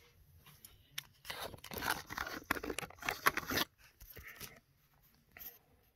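Handling noise from a phone camera being picked up and moved: irregular crackly rustling and scraping for about two and a half seconds, then softer rustling and a small click near the end.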